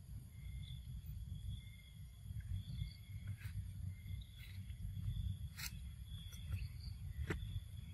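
Insects chirping, a high two-pitched trill that repeatedly starts and stops, over a steady low rumble. A few sharp clicks come in the second half.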